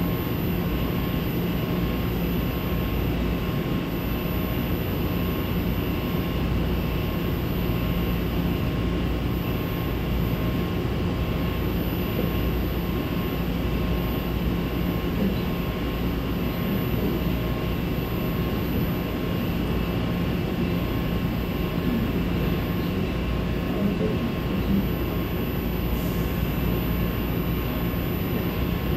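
SEPTA Market–Frankford Line train standing at the platform with its doors open, its onboard equipment running with a steady hum and a thin, steady whine.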